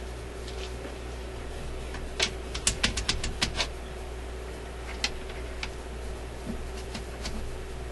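Sharp small clicks and taps of test leads and clips being handled and connected on a workbench: a quick run of about ten about two seconds in, then a few single ones. A steady low electrical hum sits underneath.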